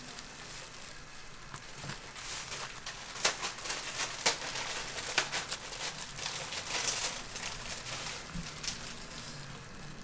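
Thin plastic food-service gloves crinkling and crackling as hands squeeze and pack a large ball of rice mixed with seaweed flakes, busiest through the middle.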